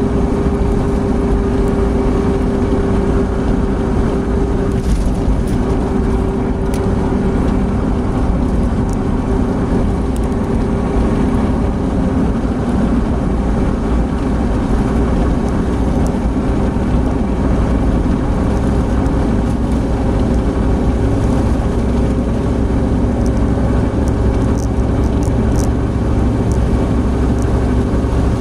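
Opel Blazer cruising at highway speed, heard from inside the cabin: a steady engine and drivetrain drone mixed with tyre and wind noise. The low rumble grows slightly in the last several seconds as the car speeds up.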